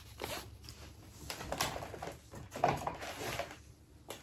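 Plastic exterior panel of a Carrier ductless ceiling cassette being handled and worked loose: irregular light knocks, scraping and rustling, in two busier spells about a second and a half in and near three seconds.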